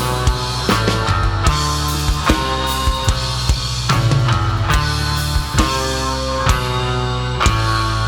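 A rock band playing live through a PA, without vocals: a drum kit with kick and snare keeping a steady beat under bass and guitar.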